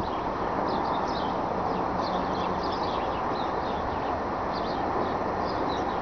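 Small birds chirping over and over above a steady outdoor rumble with a faint low hum running under it.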